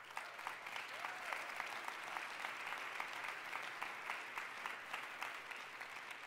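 Audience applauding: many hands clapping together, a dense steady patter that swells in just before and begins to thin out near the end.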